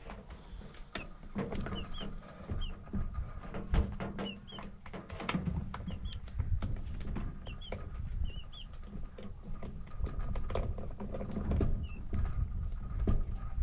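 A young chick peeping: short, high chirps, often in pairs, repeating through most of the stretch with a pause near the end. Under the peeps are scattered knocks and rustling with a low rumble.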